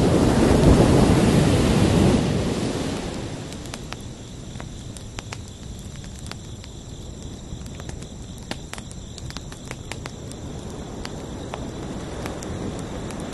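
Ocean surf: a wave breaks and washes in, loudest in the first two seconds, then recedes into a quieter hiss with scattered crackles, and the next wave builds near the end. A steady high cricket chirring runs underneath.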